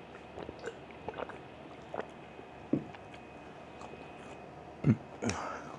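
A person chewing food close to a clip-on mic, with small scattered mouth clicks. Near the end come two low thumps close together, the first the loudest sound.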